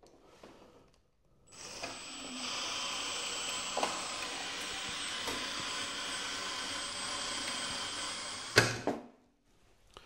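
Electric drill driving a Vevor SD-002 cable stripping machine as a piece of cable is fed through its rollers and blade, a steady motor run with a high whine, starting about a second and a half in. A sharp knock near the end, then it stops.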